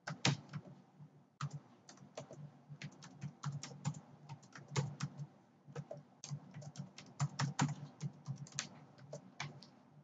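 Typing on a computer keyboard: quick, irregular key clicks, several a second, with short pauses between runs of keystrokes.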